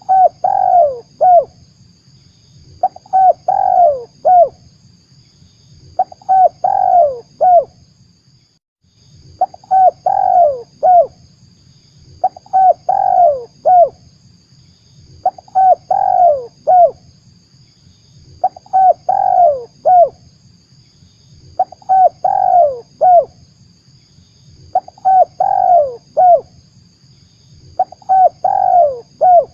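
Spotted dove (tekukur) cooing: a short phrase of a few coos, the main note falling, repeated steadily about every three seconds. This is the call used to lure the birds.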